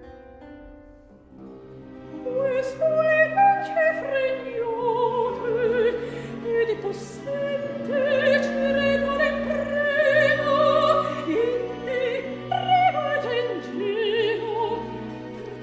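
Operatic soprano singing a Baroque aria with wide vibrato over a string orchestra and harpsichord continuo. The accompaniment opens quietly and the voice comes in strongly about two seconds in.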